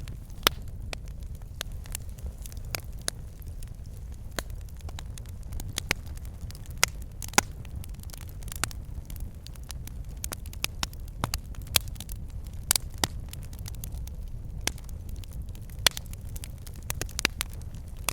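Wood fire burning in a fireplace: irregular sharp crackles and pops, a few louder snaps, over a low steady rumble of the flames.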